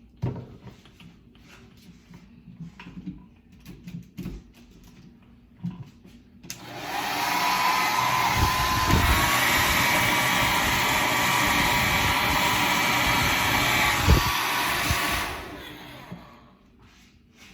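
Handheld hair dryer switched on about six and a half seconds in, blowing steadily at one setting for about eight seconds, then switched off and winding down. Light knocks and handling sounds come before it.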